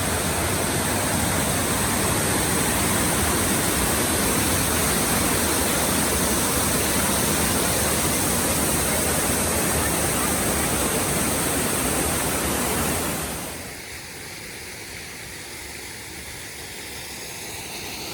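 A large waterfall's steady, loud rush of falling water. About 13 seconds in it cuts sharply to a much quieter hiss.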